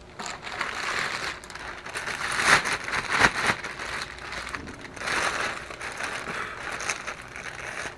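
Plastic food packaging crinkling and rustling in irregular bursts as it is handled, loudest about two and a half to three seconds in.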